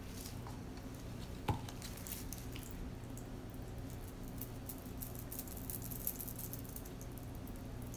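A single knock about one and a half seconds in, then faint crackling and ticking as a wooden stir stick spreads liquid resin over crushed glass on plastic wrap, over a low steady hum.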